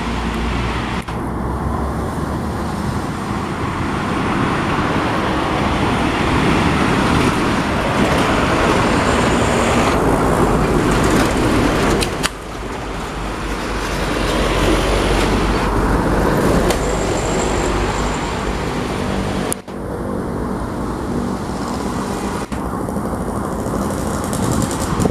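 Busy road traffic dominated by heavy diesel trucks climbing a grade at low speed: a continuous engine rumble with tyre and road noise. The sound breaks off abruptly and resumes twice, about twelve seconds in and again near twenty seconds.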